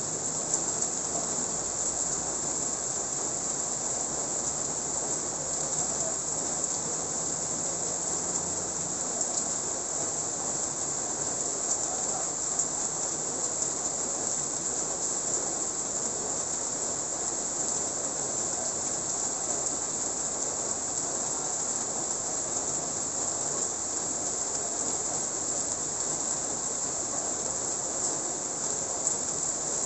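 Steady light rain falling on a wet road and the roofs around it, an even hiss that holds with no thunder.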